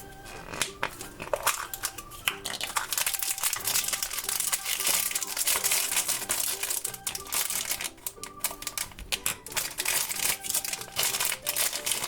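A Trolls foil blind bag crinkling and rustling as it is handled and torn open, a dense run of irregular crackles and clicks, loudest in the middle stretch.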